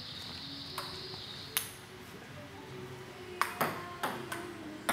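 Table tennis ball clicking off paddles and the table, with a single tap twice in the first couple of seconds, then a quick run of hits as a rally gets going in the second half.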